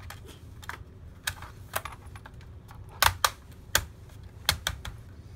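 Plastic memory-access cover being pressed and snapped into place on the underside of a laptop: a series of sharp plastic clicks, the loudest pair about three seconds in.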